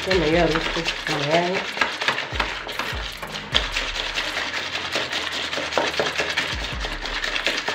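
Metal whisk beating a runny egg mixture in a plastic bowl: quick, uneven clicking and scraping strokes against the bowl, with a wet slosh.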